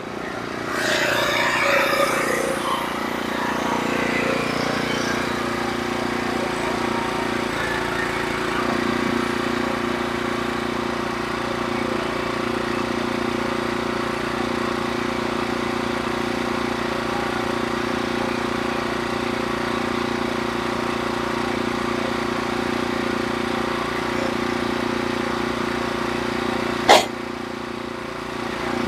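Norwood HD36 portable bandsaw mill running steadily as it saws the top slab off a log, with one sharp click near the end.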